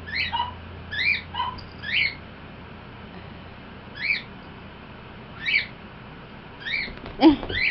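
A string of short, high-pitched animal chirps, one every second or so, with a pause in the middle and a louder, lower call near the end.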